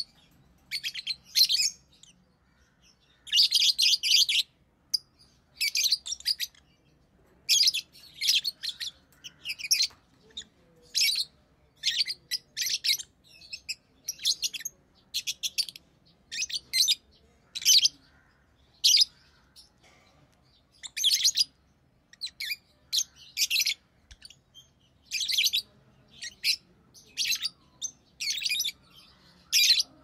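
Rosy-faced lovebirds chirping: short bursts of rapid, high-pitched chirps about once a second, with brief gaps between.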